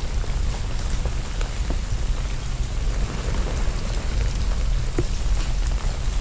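Freezing rain falling steadily, a continuous patter with scattered sharp ticks of drops, one a little louder about five seconds in, over a constant low rumble.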